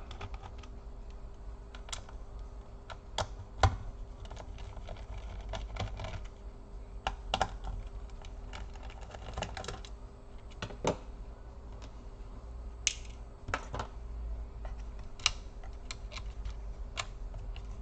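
Irregular small clicks, taps and a few short scrapes from hands and a screwdriver working on a laptop's plastic and metal parts, while the hard drive is freed for removal.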